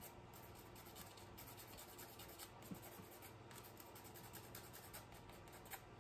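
Faint, quick scratchy strokes of a nail buffer rubbed back and forth across a fingernail to smooth its surface, with two light taps.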